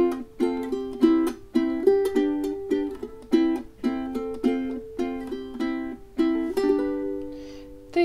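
Ukulele fingerpicked in a steady pattern: thumb plucking the fourth string, then the other three strings plucked together, through the chords A minor, F, C and G. Near the end a single chord is left ringing and dying away.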